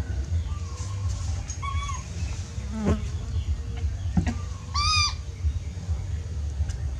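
A baby monkey crying in short, clear, high calls: a few faint ones in the first two seconds and the loudest, a call that rises and falls, about five seconds in, over a steady low hum. The crying is taken by the owner for the baby missing its mother and wanting warmth.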